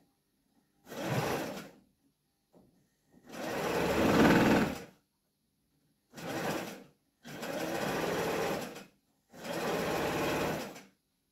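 Electric sewing machine stitching in five short runs, stopping and starting between them, as the open end of a wool-filled gauze bag is sewn shut. The second run, a few seconds in, is the longest and loudest.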